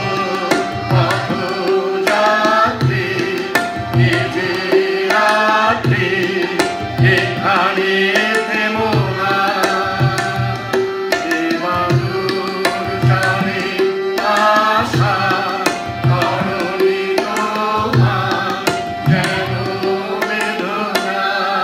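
Group of voices singing a Bengali song in chorus, accompanied by tabla strokes in a steady rhythm, about two a second, and a harmonium's held tones.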